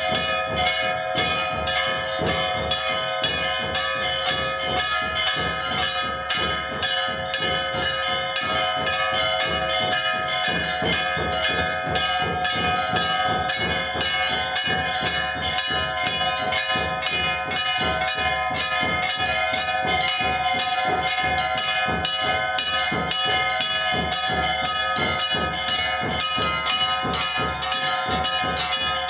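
Temple bells struck rapidly and continuously, several ringing tones sounding on together.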